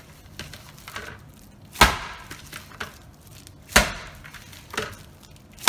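Kneaded yeast dough being thrown down into a plastic bowl: three loud slaps about two seconds apart, with fainter knocks in between.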